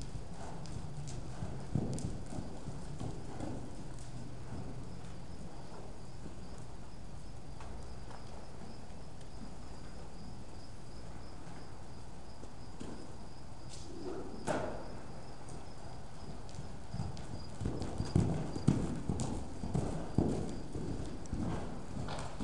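Hoofbeats of a paint horse moving loose on the dirt footing of an indoor arena. The beats come in the first few seconds, then mostly stop for a stretch while the horse stands. They return loudest in the last few seconds as it runs again.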